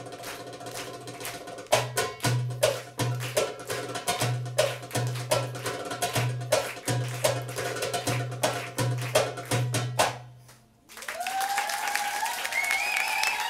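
Darbuka (metal goblet drum) solo: a fast roll of sharp tek strokes, then a rhythm of deep dum strokes with crisp tek accents, ending with a last hit about ten seconds in. Just under a second later the audience breaks into applause and cheering.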